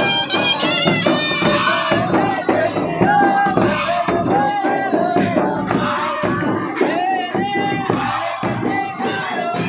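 Loud live folk music: large two-headed barrel drums beaten steadily under a crowd of voices singing and calling a repeating, wavering melody.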